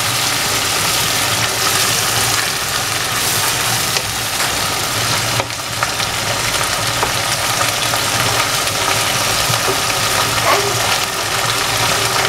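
Canned tuna, onion and garlic sizzling in butter in a non-stick wok, with a wooden spatula stirring and scraping as the tuna is broken up.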